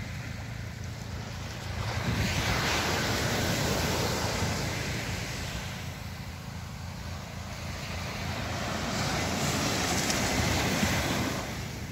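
Small sea waves breaking and washing up the sand, swelling twice, with wind rumbling on the microphone.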